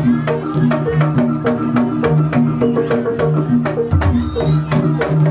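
Gejok lesung music: a wooden rice-pounding trough (lesung) beaten with wooden pestles in a steady fast rhythm, about three to four sharp knocks a second, over low ringing notes.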